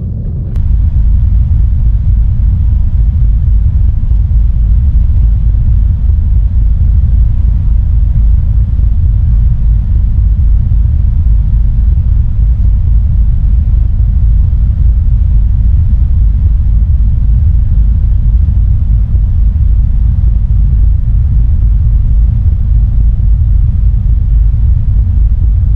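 Loud, steady low rumble of a ro-ro passenger ferry's engines while it is under way, heard from the stern deck. It cuts in suddenly about half a second in.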